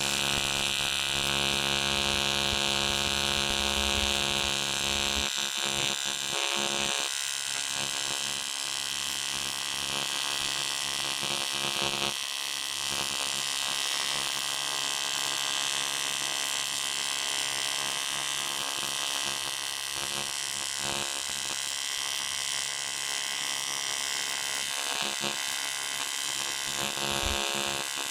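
AC TIG (argon-arc) welding arc buzzing steadily while aluminium filler wire is fed in to build up a broken aluminium steering knuckle.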